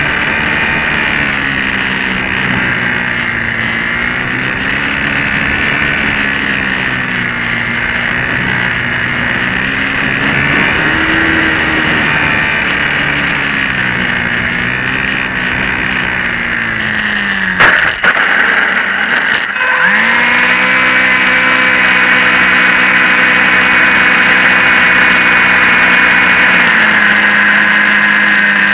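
Small electric motor and propeller of a HobbyZone Champ RC plane whining, the pitch rising and falling with throttle. About two-thirds of the way through there is a sharp knock and a brief dip, after which the whine holds at a steady pitch.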